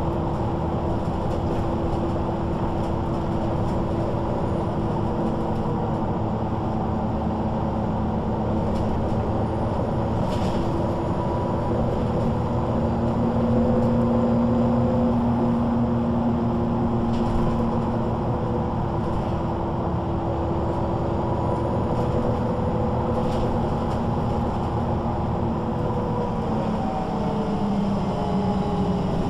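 MAN NG 313 articulated bus heard from the passenger cabin while under way: a steady diesel engine and ZF automatic gearbox drone with a whine. It grows a little louder about halfway through and rises in pitch near the end.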